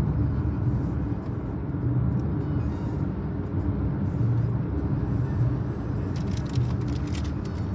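Car cabin noise while driving at a steady speed: a steady low rumble of engine and tyres heard from inside the car.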